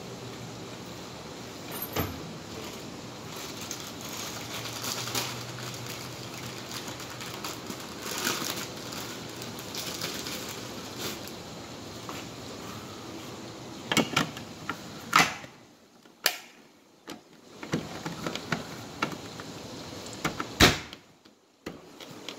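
Rustling handling noise from fitting a Simplex horn strobe onto its mounting plate, then several sharp clicks and knocks. The loudest comes about 20 seconds in, as the red housing is pressed into place.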